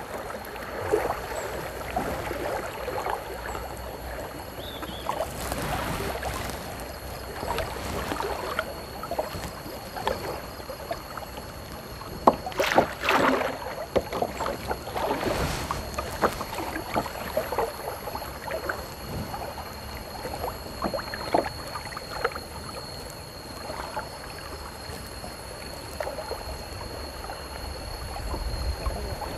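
Kayak paddles dipping and splashing in river water, in irregular strokes over the steady wash of the water.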